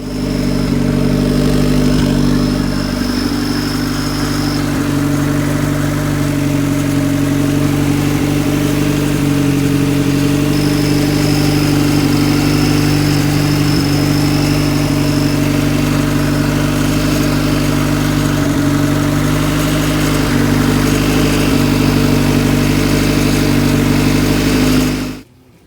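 A machine running steadily at a constant speed, with an even drone and a thin high tone over parts of it, starting and stopping abruptly.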